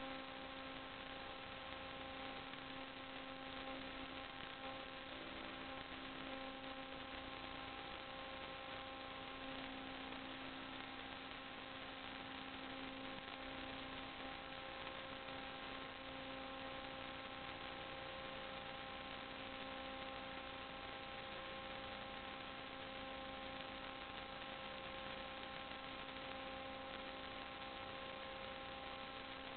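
Steady electrical hum over a constant hiss, the noise of a sewer inspection camera's own electronics, unchanging throughout.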